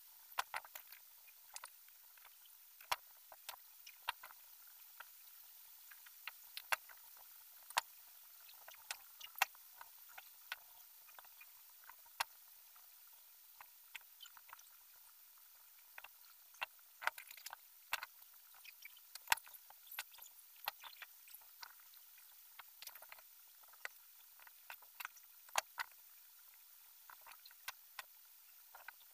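Irregular light clicks and ticks, a few a second, of nylon monofilament line being wrapped and pulled tight around the wire ribs of a bird-cage frame, over a faint steady hiss.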